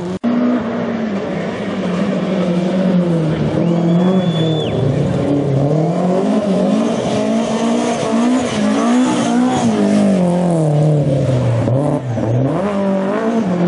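Rally car engine at high revs, its pitch climbing and dropping again and again through gear changes and lifts. A brief high squeal sounds about four seconds in.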